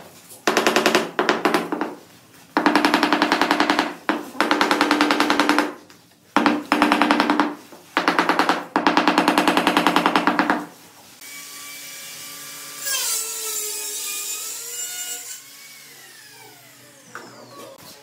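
A small hammer tapping rapidly on a large ceramic floor tile to bed it into the mortar. The tapping comes in five bursts of a second or two each and stops about ten and a half seconds in, after which a quieter sound with gliding tones follows.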